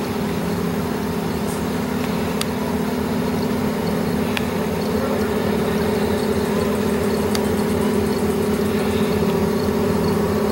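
An engine running steadily with a low, even hum, growing a little louder near the end, with a few faint ticks over it.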